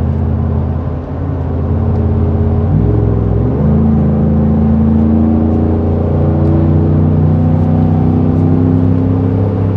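A Ford 5.0 Coyote V8 under hard acceleration through a Borla cat-back exhaust, heard from inside the cab as a loud, deep, steady exhaust note. About three seconds in the note breaks briefly and climbs back.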